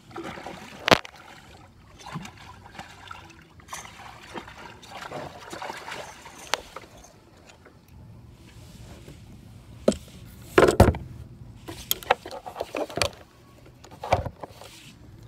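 Irregular knocks and clatters on a kayak hull, with water splashing and dripping, as a freshly caught redfish is handled aboard. The loudest knocks come in a cluster about two-thirds of the way through.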